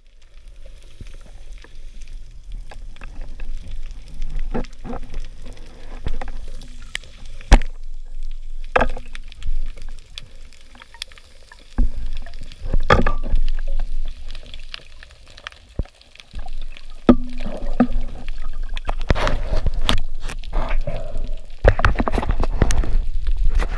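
Underwater water noise picked up by a camera mounted on a speargun, with scattered sharp clicks and knocks and a short low hum that comes back several times. Bursts of bubbling and water movement occur as the diver breaks the surface about twelve seconds in, and again near the end.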